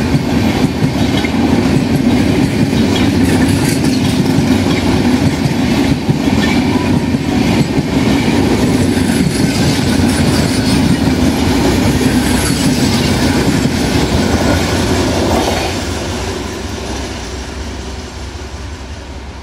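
Long passenger train passing close by, its coach wheels clattering over the rail joints with a steady rumble. The sound fades away over the last few seconds as the final coach passes and recedes.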